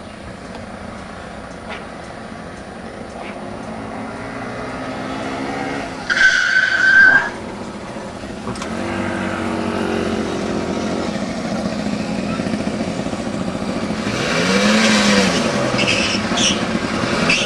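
Small two-stroke moped engines running and revving as they ride past, their pitch climbing and falling. A loud steady beep about a second long cuts in about six seconds in.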